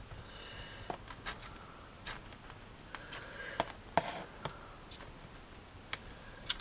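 Scattered small clicks and taps, about a dozen of them, as a paintbrush is worked in PVA glue on a hand-held paper plate and dabbed onto a board, with faint handling rustle between.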